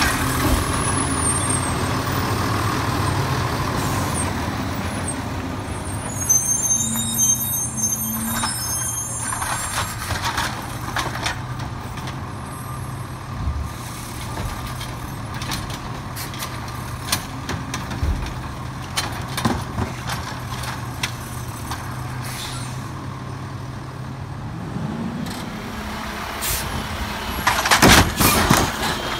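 Automated side-loader garbage truck's diesel engine running steadily as the truck drives off. Near the end the engine speeds up as the automated arm works, with a cluster of loud clanks as it grips a plastic recycling cart.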